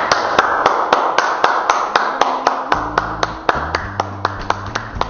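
Hand clapping close to the microphone, a steady run of sharp claps at about four a second, applauding a newly married couple.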